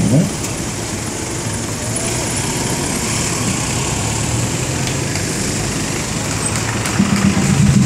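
A car engine running steadily close by, a low hum under an even hiss of street noise.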